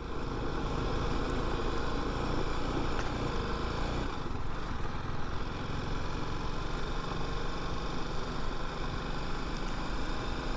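Motorcycle engine running steadily, picked up by the rider's onboard action camera.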